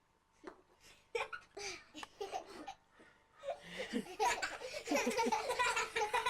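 Laughter: a few short bursts, then more sustained laughing from about halfway through.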